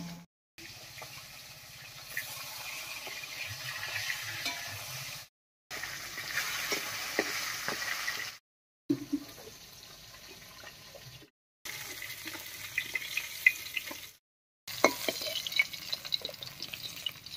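Chitol fish pieces sizzling as they fry in hot mustard oil in an iron kadai, with a metal spatula scraping and clicking against the pan as the pieces are turned and lifted out. The sound comes in several short stretches broken by brief silent gaps.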